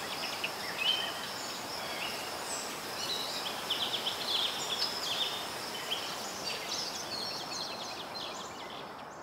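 Outdoor ambience: small birds chirping over a steady background hiss, fading out near the end.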